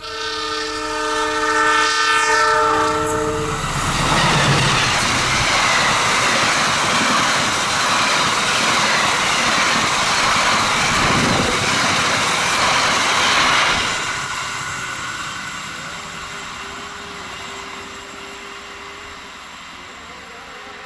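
A train horn sounds a chord of several steady tones for about three and a half seconds, then a train passes at speed with loud rolling wheel-on-rail noise for about ten seconds before fading away.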